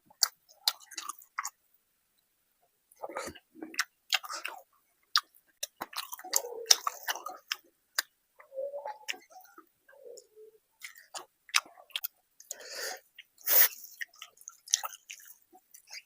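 Close-up chewing of a mouthful of rice and curry, with sharp wet clicks and lip-smacks, irregular throughout; one louder smack about thirteen seconds in.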